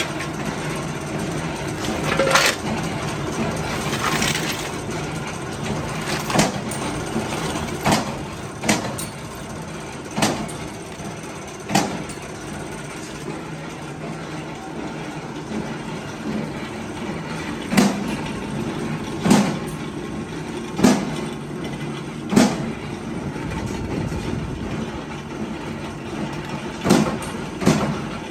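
Belt-driven workshop machine running with a steady low hum, and sharp metal clanks every second or few. In places the clanks come about one and a half seconds apart.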